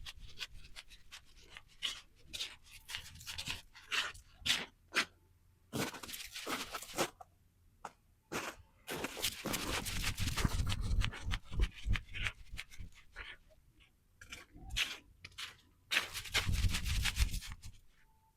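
Footsteps crunching and scraping through snow in an irregular series of short crunches, with longer unbroken runs of crunching around the middle and near the end.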